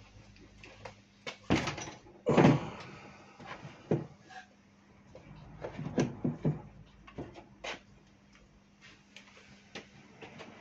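Knocks and clunks of a pocket bike being set down and shifted about on a wooden workbench. The two loudest thuds come about one and a half and two and a half seconds in, followed by lighter knocks and rattles.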